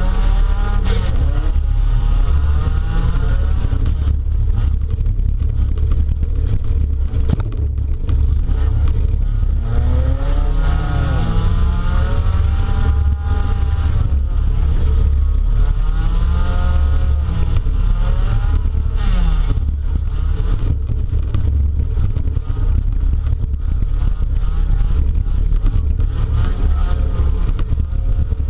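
Speedway derby car's engine heard from inside the car, revving up and falling back again and again over a heavy steady rumble, with occasional knocks and rattles.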